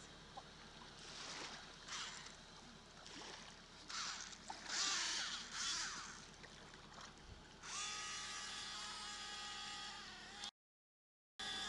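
Radio-controlled model boat's small motor whining as it skims across the water, first in surges over a hiss of spray, then holding one steady high pitch. The sound drops out for about a second near the end.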